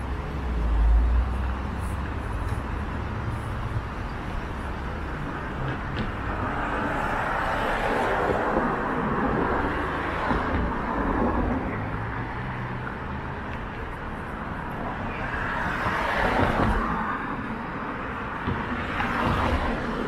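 City street traffic, with cars swelling past several times. A burst of deep wind rumble hits the microphone about a second in.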